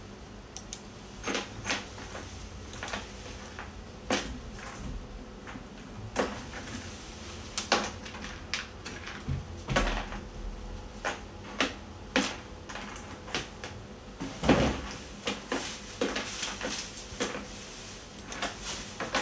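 Irregular light clicks and knocks of multimeter probes and a plastic wiring-harness connector being handled on a workbench, louder for a moment about three-quarters of the way through, over a faint steady hum.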